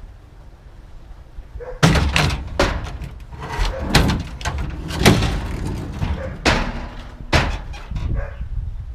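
A run of irregular bangs, knocks and clatter, starting about two seconds in and going on until near the end, with a few sharp loud hits among lighter rattles.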